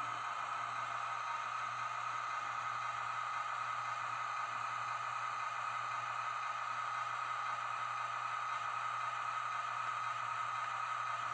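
Steady jet-engine hiss from an N scale model RDC railcar's small onboard sound-decoder speaker, playing a recorded J47 jet engine running sound. It holds even, with no change in pitch or level.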